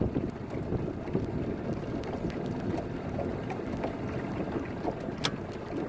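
Strong wind buffeting the microphone on a small fishing boat: a steady low rumble scattered with small ticks, including one sharper tick about five seconds in.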